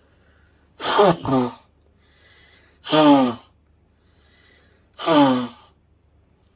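A woman blowing her nose hard into a tissue: three loud honking trumpet blows about two seconds apart, each sliding down in pitch, the first broken into two quick pushes.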